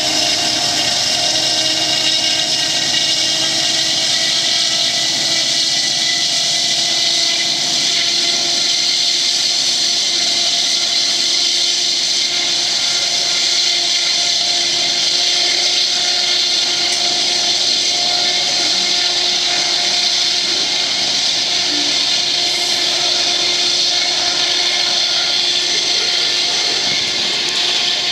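Diesel-electric locomotives, including an EMD SD70MAC, working at full throttle on a hard pull to start a loaded coal train up a grade: a loud, steady drone with whining tones over a strong hiss.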